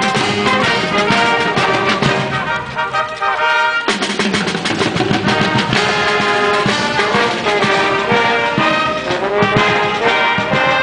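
Brass showband playing live: trumpets and sousaphones sounding sustained chords of a tune, with sharp percussive hits throughout.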